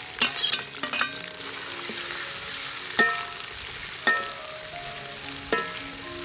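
Raw shrimp hit hot oil and garlic in a metal wok and sizzle with a steady hiss. A metal spatula stirs them and clanks against the wok several times, each strike ringing briefly.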